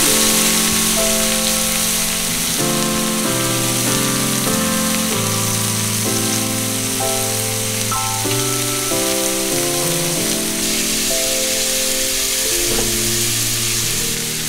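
Lamb chops sizzling in oil on a flat-top griddle, with instrumental background music of held notes changing every second or so over it.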